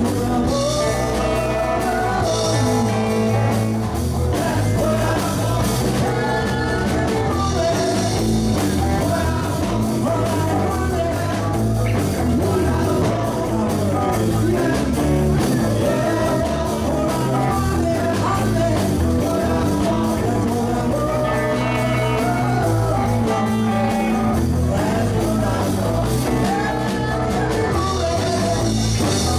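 A rock-and-roll band playing a song, with a voice singing over the instruments.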